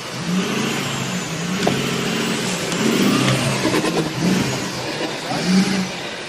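Off-road pickup truck engine revving hard in repeated surges, rising and falling, as it claws up a steep dirt bank.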